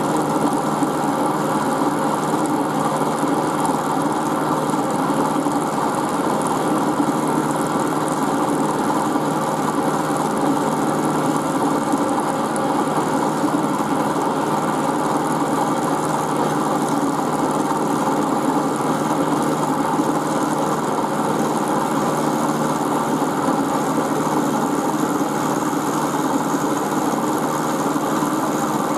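Milling machine running steadily, its end mill cutting a shallow V groove into a square steel block.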